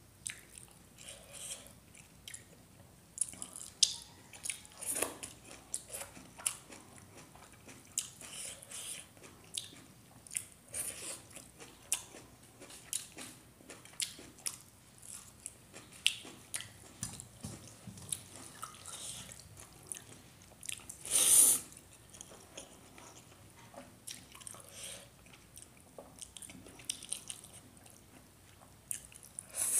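Close-up mouth sounds of a person eating cooked gadha saag greens and rice by hand: biting and chewing, with frequent short crunches and smacks. One louder noise lasting about half a second comes about two-thirds of the way through.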